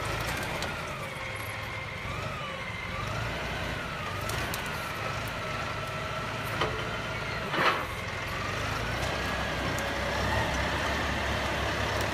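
Tractor engine running under load as its front-loader grapple pushes into a brush pile, with a thin whine that rises and falls in pitch. A sharp crack stands out about two-thirds of the way in.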